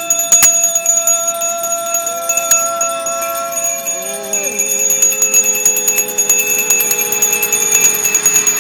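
Zen monks on takuhatsu alms round giving their long drawn-out "Hooo" calls, several voices overlapping. Each call is held steady for a few seconds and then slides down in pitch, with a sharp click near the start.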